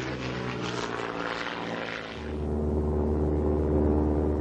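Propeller aircraft's piston engine running in flight, a steady drone. About two seconds in, the rushing noise falls away and a deeper, even, louder drone takes over.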